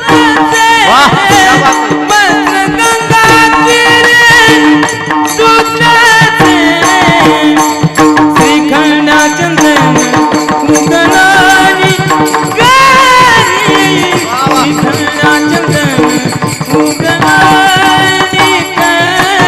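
Devotional kirtan singing: a solo voice in ornamented, wavering melodic runs over a steady held drone, with percussion accompaniment.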